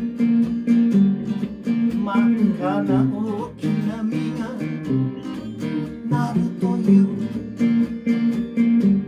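Live acoustic guitar strumming with an electric guitar playing lead lines over it, an instrumental passage of a slow folk-rock song.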